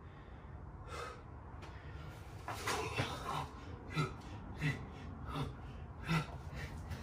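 A man breathing hard during burpees with push-ups, with short, forceful breaths about once a second.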